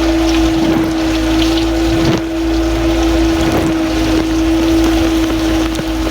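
Samsung dishwasher running, heard from inside the tub through plastic bags: a pump motor hums one steady tone while water sprays and splashes against the bags.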